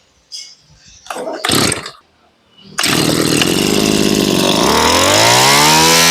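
Tanaka 23 cc two-stroke brush cutter engine being pull-started: a few short rasps in the first two seconds, then it catches about three seconds in and runs. A couple of seconds later it revs up with a rising whine and holds at high speed.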